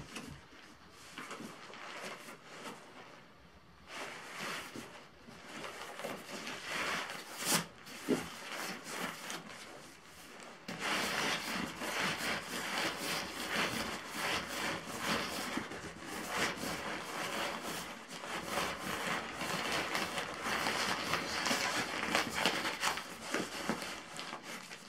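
Fabric shell of an inflatable insulated sleeping pad rustling and crinkling as it is rolled tightly and pressed down to squeeze the air out, louder and denser from about ten seconds in.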